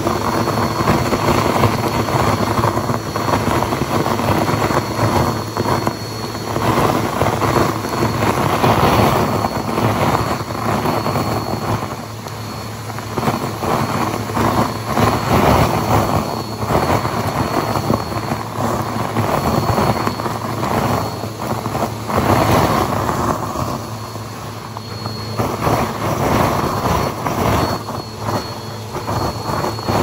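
Vacuum cleaner running, its hose nozzle sucking up a heap of metallic foil confetti from a shag rug: a steady high motor whine under the rushing noise of the flakes pulled up the hose, swelling and easing as the nozzle pushes into the pile.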